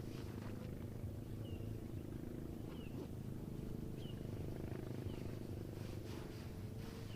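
A steady low hum with a short high chirp repeating about every second or so, like a small bird calling in the forest.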